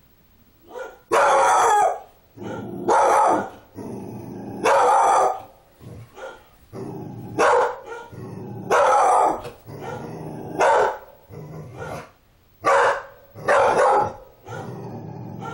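A dog barking in loud bursts every second or two and growling low between the barks, a frightened, defensive response to a doll it is afraid of.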